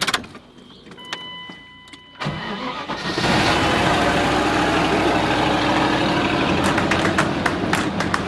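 A short electronic chime about a second in, then a vehicle engine starts just after two seconds and settles into a steady run.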